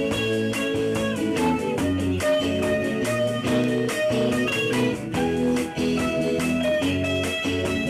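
A band playing a song live at rehearsal: electric guitar over bass notes and a steady beat.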